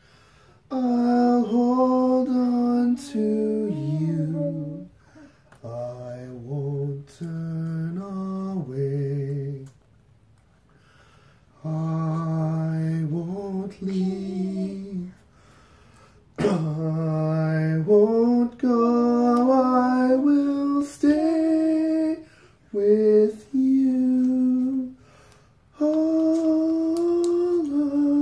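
A man singing a slow, unaccompanied lullaby in phrases of long held notes with short pauses for breath. His voice is rough from allergies.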